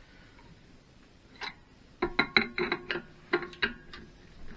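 A quick, irregular run of sharp metallic clicks with a ringing tone, starting about two seconds in and tailing off near the end. They come from a hydraulic bench press being pumped to push a gear shaft a little further into its bearing.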